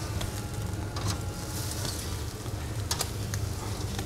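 Steel barbecue tongs clicking against the grill grate and a plastic cutting board as grilled beef steaks are moved off the grill: a few sharp clicks over a steady low hum.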